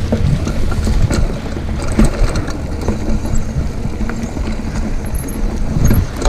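Schwinn Axum mountain bike being ridden along a dirt forest trail, heard from a rider-mounted camera: a steady low rumble of wind and tyre noise, with many small knocks and rattles from the bike over the rough ground.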